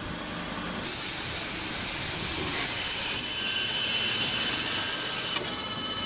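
Automatic lock-cylinder drilling and chamfering machine at work on brass cylinder parts. A loud, steady hiss comes on suddenly about a second in and drops back shortly before the end.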